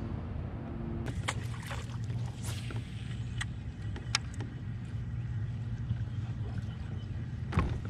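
Steady low motor hum, with a few sharp clicks in the first few seconds and a louder knock near the end.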